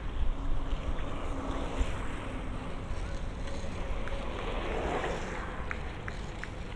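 Wind buffeting the microphone in a low, gusty rumble over steady outdoor noise, with a swell of noise past the middle and a few short ticks near the end.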